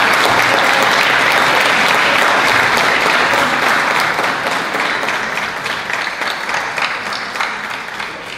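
Audience applauding, steady at first and then slowly dying away over the last few seconds.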